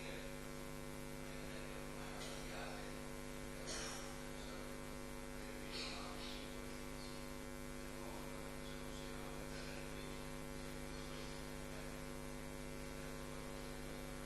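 Steady electrical mains hum with a stack of fixed tones, from the audio chain. A few faint brief noises come about two, four and six seconds in.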